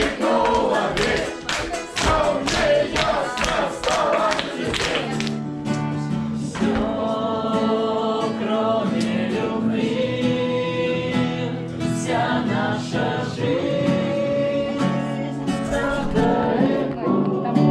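A group of voices singing a song with instrumental accompaniment. For the first five seconds a quick rhythmic beat runs under the voices; after that come longer held sung notes over a steady low accompaniment.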